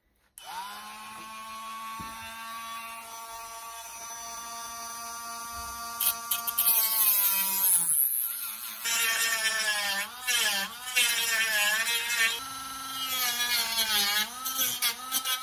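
Ferrex cordless Dremel-style rotary tool switched on, its small motor spinning up to a steady high whine. About six seconds in its cutting wheel bites into the hooks on a trim piece, adding loud grinding noise, with brief pauses and the motor's pitch sagging each time it is loaded.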